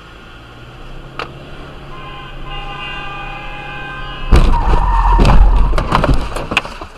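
A car horn sounds for about two seconds, then a car collision hits with a sudden loud crunch, followed by about two seconds of crashing and clattering.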